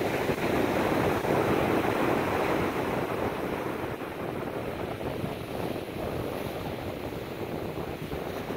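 Ocean surf breaking and washing up the sand, with wind buffeting the microphone. The wash swells about a second in and eases off a couple of seconds later.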